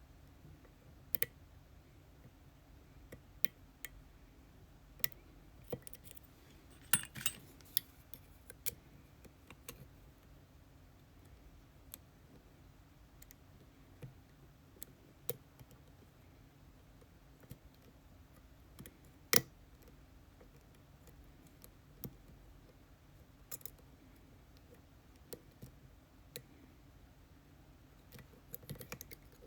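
Sparse, irregular small metallic clicks and taps from tools working an ASSA Twin Exclusive lock cylinder, with a quick cluster of clicks about a quarter of the way in and one sharper click around two-thirds of the way in.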